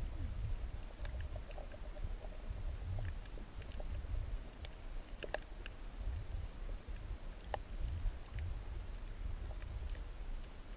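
Underwater reef sound: a steady low rumble of moving water with scattered sharp clicks and crackles, two of them louder, about five and seven and a half seconds in.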